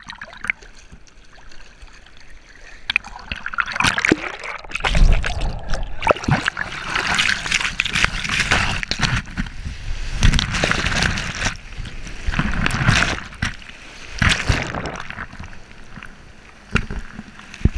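Breaking ocean wave and rushing whitewater, with splashing and sloshing right at a camera held at the water's surface. Quieter lapping water at first, then the wash builds about five seconds in with a low rumble and surges several times.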